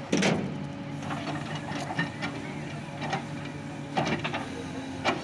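Machinery running with a steady hum, broken by about five sharp, irregular clanks or knocks; the loudest comes right at the start and another near the end.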